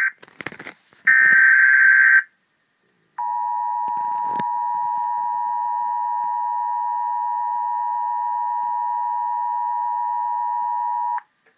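Emergency Alert System broadcast signalling for a National Weather Service warning: a SAME header data burst of about a second, a shrill warbling buzz. After a short gap comes the EAS two-tone attention signal (853 and 960 Hz), held steady for about eight seconds and cut off cleanly. There are a few faint clicks at the start and a single knock about four seconds in.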